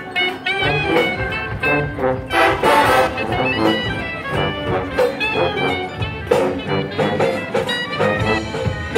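Marching band playing, brass to the fore, in a rhythmic passage of short notes.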